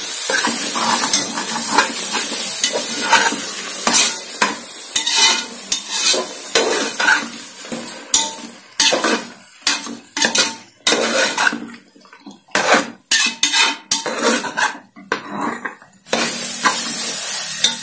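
A spatula scraping and knocking around an aluminium pressure cooker as yogurt is stirred into a frying prawn masala, over a sizzle. In the second half the strokes come apart, one by one, with quiet between them.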